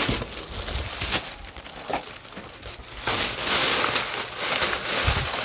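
Thin plastic carrier bag crinkling and rustling as it is handled and opened to take out wrapped takeaway food, an irregular run of crackles that grows louder about halfway through.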